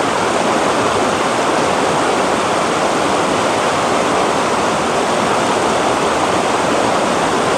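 Shallow rocky river rushing over boulders in small white-water rapids: a loud, steady rush of water that does not change.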